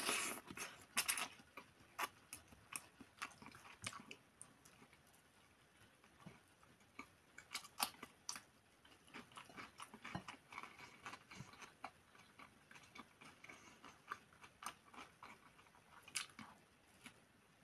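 Close-miked eating: slurping instant noodles in at the start, then chewing with many short wet mouth clicks and smacks.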